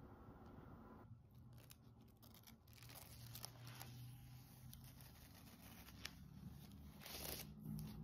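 Soft rustling and crinkling of the thin protective sheet being lifted off a new MacBook Air's screen, with a louder swish of the sheet about seven seconds in.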